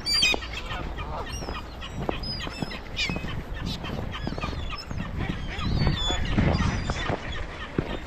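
A flock of gulls calling: many short, overlapping cries, close and continuous.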